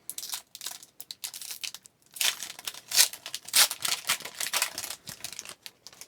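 Foil wrapper of a hockey card pack crinkling and tearing as it is opened by hand: a run of short rustles that gets louder about two seconds in and stops shortly before the end.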